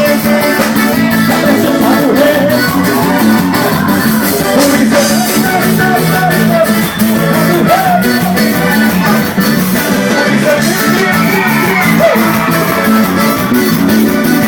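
A live band playing forró with a steady beat and a repeating bass line, with some singing over it.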